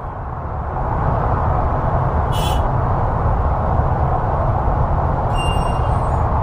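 Recorded city street traffic played by an Ecotones Sound+Sleep machine's city soundscape: a steady rumble of passing vehicles that swells about a second in. A short high hiss comes about two and a half seconds in, and a brief high-pitched squeal near the end.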